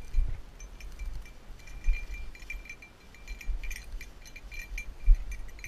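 A small bell jingling irregularly, a bird dog's collar bell shaking as the dog moves about. Low thumps of footsteps in the grass come underneath it.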